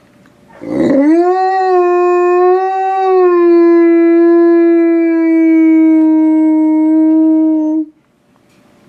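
Wolfdog howling: one long howl that scoops up quickly about a second in, then holds a nearly steady pitch for about seven seconds before cutting off abruptly.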